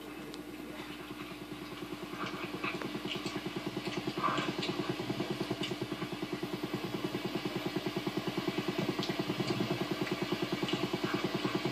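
A motor running steadily with a fast, even pulse and a constant hum, getting a little louder over the first few seconds, with a few faint ticks on top.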